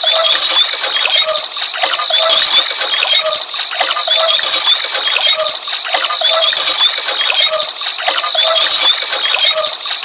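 Battery-operated toy cows' walking mechanisms running, a steady rattling whir with a beat about once a second.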